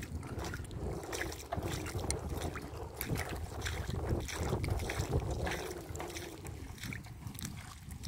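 Wind buffeting the phone's microphone on an open tidal flat, a steady low rumble, with irregular small splashes and scrapes in shallow water and wet sand.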